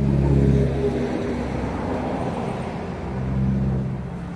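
A motor vehicle engine running, louder near the start and swelling again about three seconds in.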